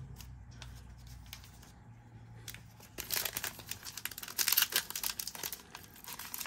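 Foil wrapper of a 2021 Panini Mosaic baseball card pack crinkling and tearing as hands pull it open, starting about three seconds in.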